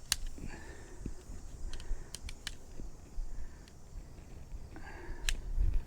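Scattered light clicks and taps from aluminium tent poles being handled and fitted during a dome tent's setup, with a sharper click about five seconds in.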